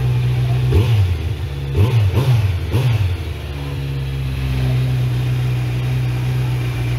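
Kawasaki Z1000's inline-four engine idling, revved four times in quick succession between about one and three seconds in, each rev rising and dropping straight back, then settling to a steady idle.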